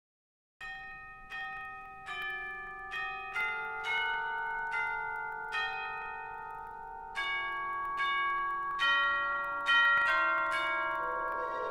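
Bell tones from the opening film score, struck one after another in a slow, eerie melody, each note ringing on under the next. A noisier swell starts to rise near the end.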